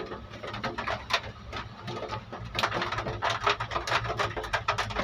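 Heavy rain drumming on an excavator cab's roof and windows: a dense, irregular patter of hard drops, heard from inside the cab.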